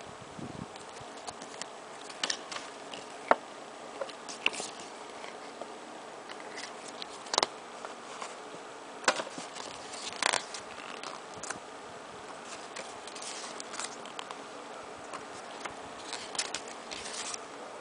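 A CD album and its packaging being handled and opened: scattered clicks, taps and short rustles over a steady hiss, the sharpest click about three seconds in.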